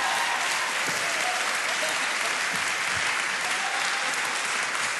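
Audience and panel applauding, a steady dense clapping.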